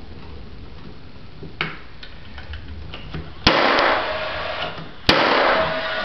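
Paslode cordless finish nail gun firing twice into cedar boards, about a second and a half apart: each shot a sharp crack followed by about a second of loud rushing noise. Light handling ticks come before the first shot.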